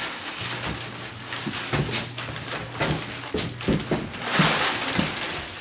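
Wood shavings and a plastic feed-style bag rustling and crinkling as the shavings are shaken out of the bag and spread by hand over a wooden floor, in a run of short scuffs and crackles with a longer pouring hiss near the end.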